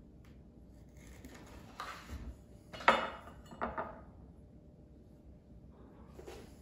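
Kitchen knife set down on a wooden cutting board: one sharp clatter about three seconds in, then a lighter knock just after.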